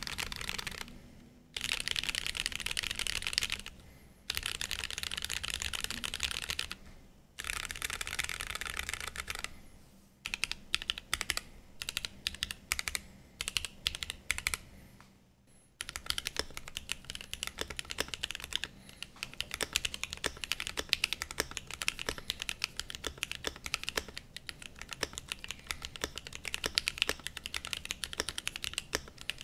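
Typing on a Glorious GMMK Pro mechanical keyboard with lubed, filmed Gateron Black Ink V2 linear switches and PBT Cherry-profile keycaps. It starts with fast flurries of keystrokes in bursts of about two seconds separated by short pauses, then scattered clicks, and settles into steady continuous typing a little past halfway.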